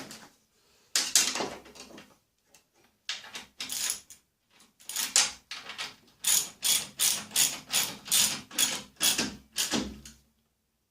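A ratchet worked in short back-and-forth strokes, tightening a screw on a table-saw fence mounting bracket. There are a few scattered strokes at first, then a quick even run of about three strokes a second from about six seconds in, which stops shortly before the end.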